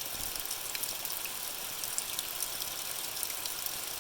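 Steady rain falling: a continuous hiss dotted with many small, sharp ticks of drops.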